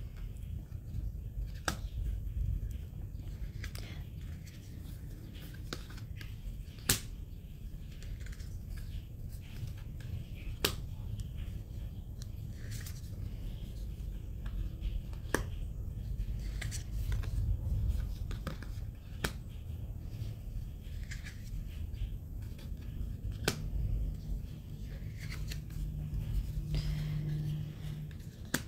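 Les Vampires oracle cards being handled one at a time, stiff cards sliding off a stack and set down, with a sharp click or snap every few seconds and soft rubbing and handling noise in between.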